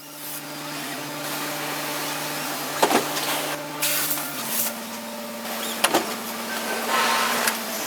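Factory machinery running: a steady motor hum that steps down in pitch about four seconds in, under a broad hiss, with a few sharp clicks.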